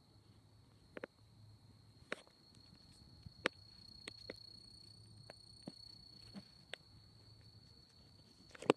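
Faint night ambience: a steady, high-pitched cricket trill with scattered soft clicks and taps, the loudest near the end.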